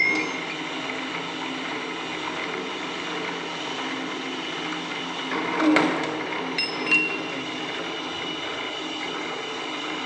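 SUC 35 hydraulic rebar cutter running, its motor and oil pump giving a steady hum. A louder metallic clunk comes about six seconds in, followed by a couple of sharp clicks.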